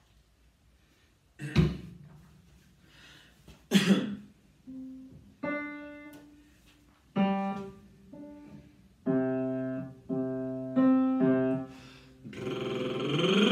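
Two short coughs, then a short warm-up pattern of single piano notes, each struck and fading. Near the end a voice begins a sung vocal-exercise glide, sliding upward in pitch.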